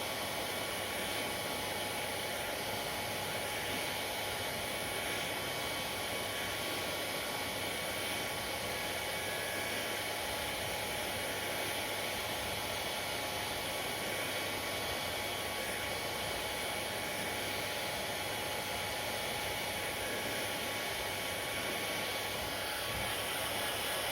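Hair dryer running steadily: a constant rush of blown air with a faint, even motor whine.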